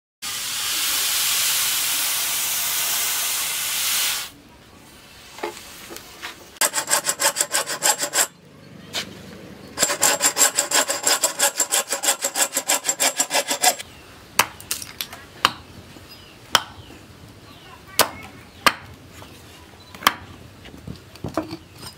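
A steady hiss for about four seconds, then a bow saw cutting through a wooden plank in two bursts of quick rasping strokes, about five a second. After that, a small hatchet chops and splits a wooden block on a log, giving sharp knocks about once a second.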